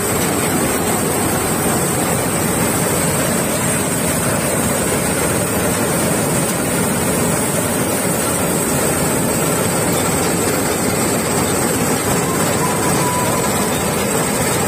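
Malkit 997 combine harvester running steadily at close range, its engine and header cutting and feeding dry crop stalks in an even, continuous mechanical noise with a constant high whine over it.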